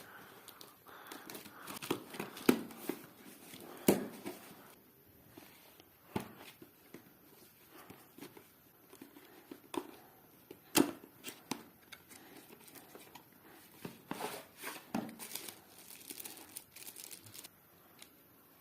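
Packaging being opened by hand: tearing and crinkling of wrapping, with scattered sharp clicks and knocks as the box and its contents are handled.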